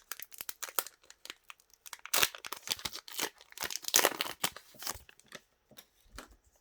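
Foil Pokémon booster pack wrapper crinkling as it is torn open by hand, a run of crackles with the loudest bursts about two and four seconds in.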